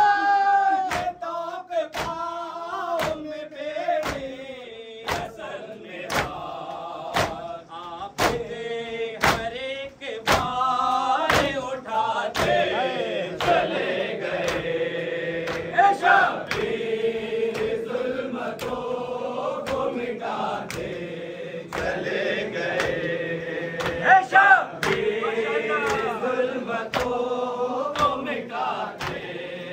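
Men chanting a nauha lament together, over a steady rhythm of hands striking chests (matam) a little more than once a second.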